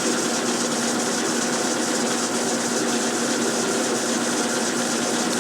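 Metal lathe running steadily with a constant hum, boring a light cut in the inside of a lifter guide block.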